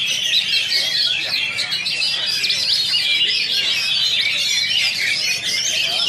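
Oriental magpie-robin (kacer) singing a rapid, unbroken stream of varied whistles and chirps, a contest-grade song.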